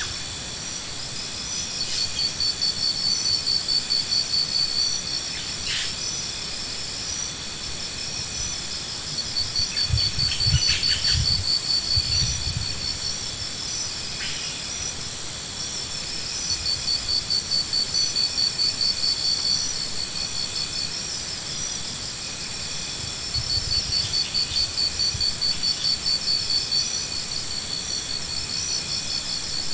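Insects calling: a steady high-pitched buzz, with bouts of rapid pulsing that swell and fade every few seconds. A few low thumps come about ten to twelve seconds in.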